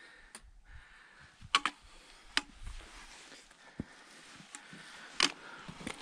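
Footsteps of hikers climbing rocky limestone ground: a handful of irregular sharp clicks and knocks on stone, the loudest about a second and a half in and near the end.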